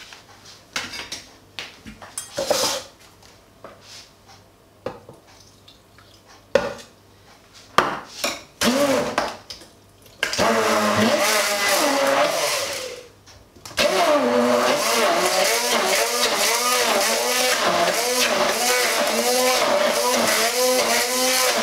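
Hand-held immersion blender puréeing skinned morcilla (blood sausage) with a little milk in its plastic beaker. After a few scattered knocks, the motor starts about ten seconds in, its pitch wavering as it works through the thick paste. It stops briefly about three seconds later, then starts again.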